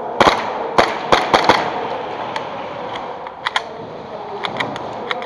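Airsoft guns firing irregular single shots, sharp cracks: five loud ones in the first second and a half, then fainter shots in small clusters later on, over a steady background hiss.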